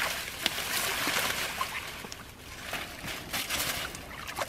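A wet plastic mesh net rustling and crinkling as it is dragged and handled, with irregular sloshes and splashes of mud and water.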